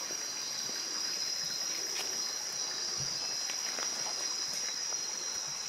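Steady, high-pitched chorus of night insects, crickets or katydids, trilling without a break, with a few faint ticks of movement in the leaf litter.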